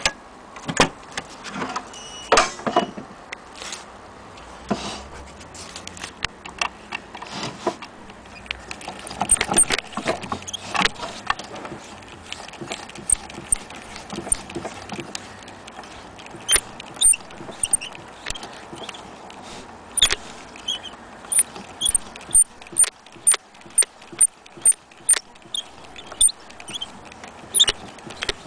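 Sharp metallic clicks and knocks from handling the fittings of a portable Columbia gramophone. About halfway in they become a run of bright clicks, about two a second.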